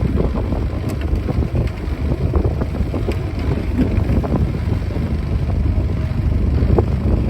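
Wind buffeting the microphone: a steady, loud low rumble with a rushing noise over it.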